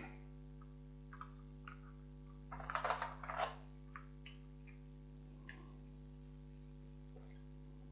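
Marker pen strokes and taps on a whiteboard as letters are written, in short scratchy bursts that are busiest about two and a half to three and a half seconds in, with a few single faint clicks elsewhere. A steady low hum runs underneath.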